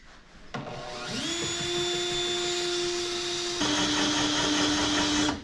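Electric drill spinning up and boring through hard steel, its motor running at a steady pitch that drops a little about halfway through as the bit bites under load. It stops near the end.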